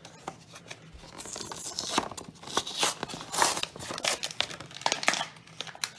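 Hot Wheels blister-card package being torn open by hand: irregular crinkling of plastic and ripping of cardboard.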